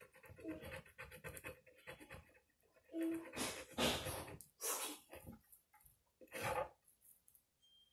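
Black pen scratching and tapping on an index card during drawing, with a few short, louder rustling noises.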